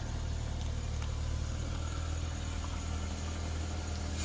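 Steady low hum of a car running, heard from inside the cabin.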